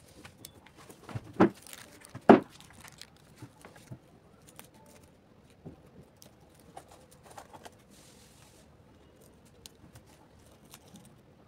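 Objects being handled: two loud knocks close together, the first about a second and a half in and the second a second later, then scattered light clicks and rustles.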